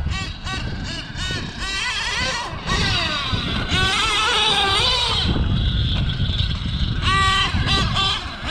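Novarossi .28 nitro engine of a 1/8-scale Losi 8ight XT truggy revving up and down in quick throttle blips. For a few seconds in the middle it is held at a high, wavering whine, and it sweeps up again near the end.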